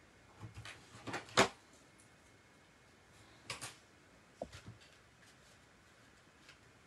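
Light taps and knocks of craft tools and card being handled on a desk, a cluster of them with the loudest about a second and a half in, two more around three and a half seconds, and a brief squeak shortly after.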